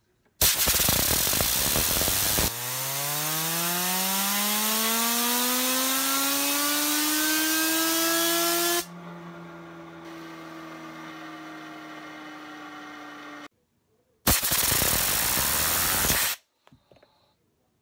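Compressed air from an air hose blasting on the Aesthetics Arrow bi-spinner fidget spinner in a test rig, its whine rising steadily in pitch as it spins up. When the air stops the spinner keeps spinning freely with a quieter, slowly falling whine, then stops abruptly. A second short blast of air follows near the end.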